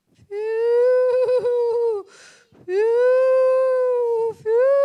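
A woman's voice imitating a snowstorm's howling wind: long, steady 'uuuu' hoots through a microphone, two of them with a quick breath between, and a third starting near the end.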